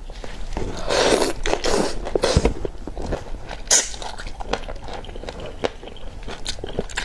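A person eating cooked sea fish: wet chewing and sucking noises with many small irregular clicks, busiest about a second in and thinning out after the middle.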